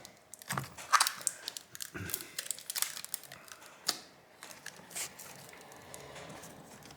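Scattered small clicks and crinkles of hands handling a tablet's replacement touch panel and its plastic film and tape, the sharpest ticks about a second in and again around four seconds.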